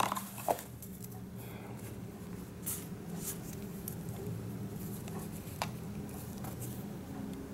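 Light rustling and a few soft clicks as the Boya BY-M1 lavalier microphone's coiled cable is picked up and handled, over a steady low hum.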